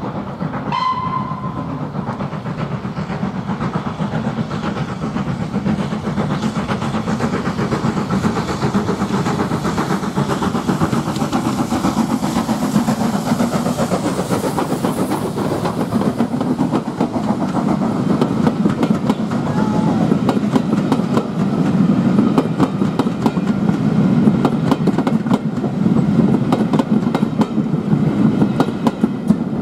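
An SR S15-class 4-6-0 steam locomotive gives a short whistle about a second in, then passes with its train. Steam hiss comes as the engine goes by, about halfway through, followed by the coaches' wheels clattering over the rail joints, growing louder toward the end.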